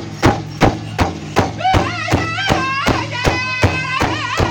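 Powwow drum group striking a large shared drum with sticks in a steady beat, about three strikes a second. A high-pitched lead singer comes in a little under two seconds in.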